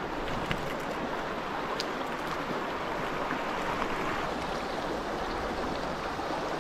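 River water rushing steadily over rocks, an even, continuous flow sound.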